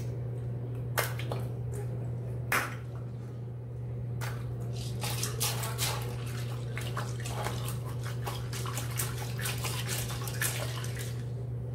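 Water-filled rubber squishy balloon being squeezed and kneaded in the hands: scattered wet squelches and clicks, a few at first and much busier from about five seconds in. A steady low hum runs underneath.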